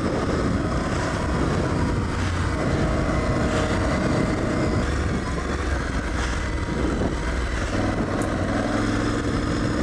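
Aprilia Tuareg 660's parallel-twin engine pulling the bike along a dirt trail, its note rising and falling as the throttle is rolled on and off. A steady rush of wind and tyre noise runs underneath.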